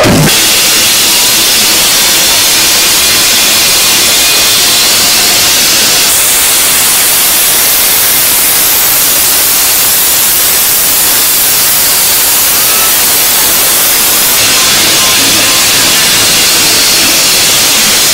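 Loud, steady hiss-like noise with no beat or voices, shifting slightly in tone about six seconds in and again near fourteen seconds.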